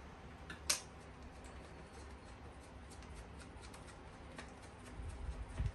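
Faint small clicks and rustles of hands fitting a screw into an open metal rack-unit chassis by hand, with one sharp click just under a second in and a low thump near the end.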